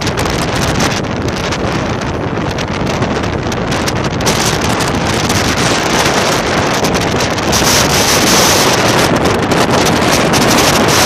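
Strong wind blowing across the microphone, a loud continuous rush, gusting stronger in the second half, with the surf of a choppy sea beneath it.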